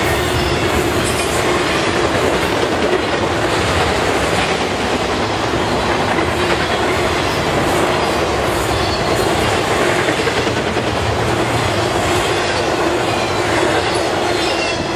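Intermodal freight train's flatcars, loaded with truck trailers, rolling past at speed: a steady rumble and rattle of steel wheels on rail, with clickety-clack over the rail joints.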